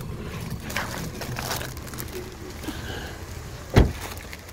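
Paper documents rustling and crinkling as they are handled and leafed through, with one dull thump about four seconds in.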